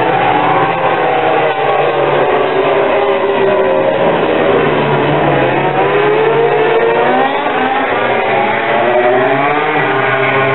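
Several 800cc four-stroke MotoGP race motorcycles passing through a corner at high revs. Their engine notes overlap and keep falling and rising in pitch, with a clear rising run of revs about halfway through and again near the end as they accelerate out of the bend.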